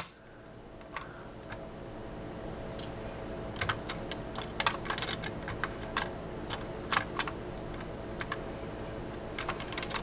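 Light metallic clicks and scrapes from an LGA1155 CPU socket's steel load plate being pressed down over the processor, its front tab being worked under the retention screw. One sharp click at the very start, then irregular clicks through the rest.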